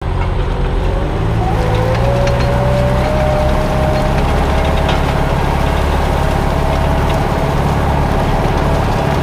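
Branson 7845C 78 hp diesel tractor engine running steadily under load while pulling a disc harrow. A whine rises in pitch over the first three seconds, then holds.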